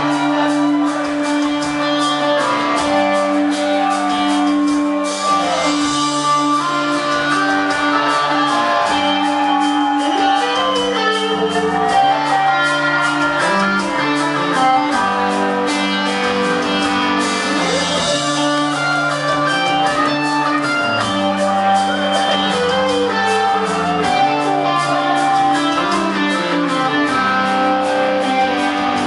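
Rock band playing live: electric guitar over bass and drums, with a steady beat.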